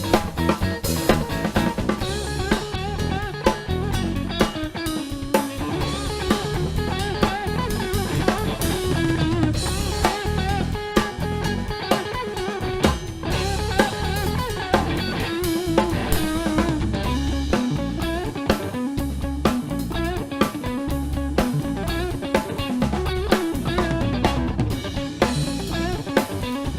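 Rock-style music with guitar and a drum kit keeping a steady beat.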